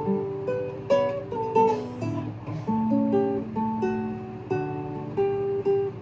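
Acoustic guitar played as an instrumental piece: a plucked melody of single notes over low bass notes, each note struck and left to ring and fade.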